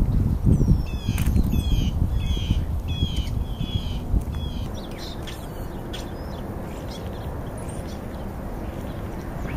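Low thumps and rustling from black vultures pecking and tearing at a food pile right by the microphone. Over it, a bird calls a quick series of about seven short falling notes, roughly two a second, from about a second in. Near the middle the pecking eases into a steady low rumble.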